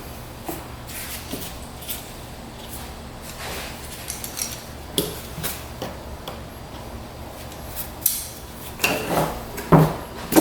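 Scattered clicks, knocks and rattles of tools and parts being handled while the plastic body panels and seat come off a Yamaha 225DX three-wheeler, with a louder cluster of knocks near the end, over a faint steady hum.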